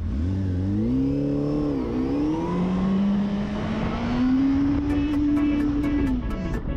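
Motorcycle engine accelerating hard, its pitch climbing steeply, dipping briefly about two seconds in at an upshift, then rising steadily again before falling away near the end, over wind and road noise.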